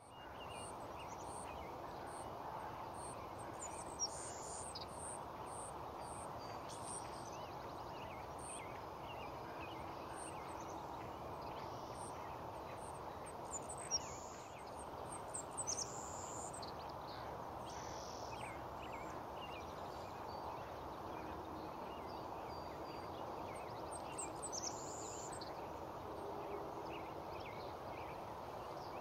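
Eastern kingbird calls: scattered short, high chips and twitters, with a few sharper, louder notes about four and fourteen seconds in, over a steady background hiss.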